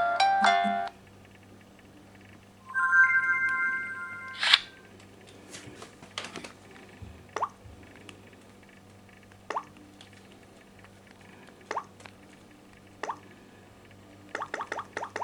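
Samsung smartphone alarm tones. A chiming ringtone melody stops about a second in, and a held electronic chord sounds briefly, cut off by a click. Then short rising blip tones come every second or two, turning into a quick run of blips near the end.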